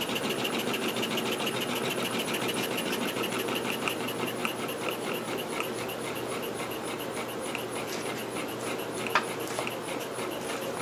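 Homemade piston steam engine running on compressed air, its valve gear and exhaust making a fast, even, rhythmic clicking and puffing. It gets a little quieter after about four seconds, and there is a single sharp click about nine seconds in.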